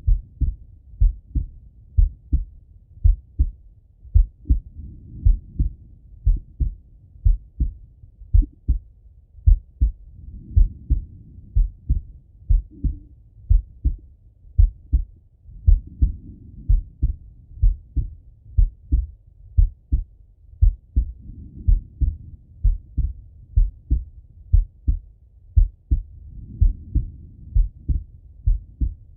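A man's slow, steady heartbeat heard through a Littmann stethoscope on the chest: deep, paired lub-dub thumps at about one beat a second. Soft swells of breath sound rise and fade every five to six seconds.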